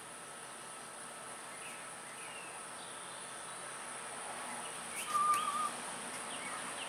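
Steady high-pitched drone of insects with scattered short bird chirps. About five seconds in come a couple of sharp clicks and a brief warbling whistle, the loudest sound.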